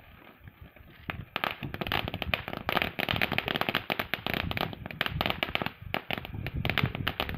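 Ground firework spraying sparks and crackling, a dense rapid rattle of tiny pops that starts sharply about a second in, with a brief lull near six seconds.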